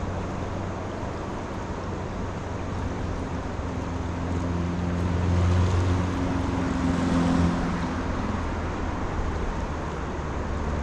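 Steady rushing outdoor noise of wind and moving water, with the hum of a passing engine that rises and fades in the middle.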